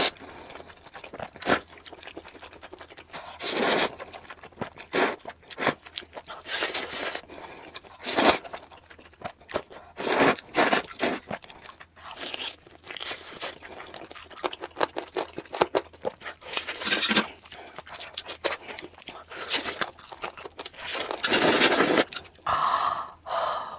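Eating sounds from a plate of spicy stir-fried instant noodles, played back sped up: irregular bursts of slurping and chewing mixed with many short clicks.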